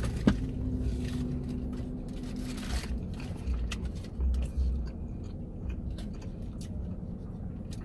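A person biting into a burger and chewing it with closed mouth, giving short soft mouth clicks, over a low steady rumble.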